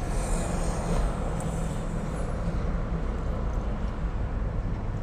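Steady low rumble and hiss of a parked car's idling engine and air conditioner, heard inside the cabin.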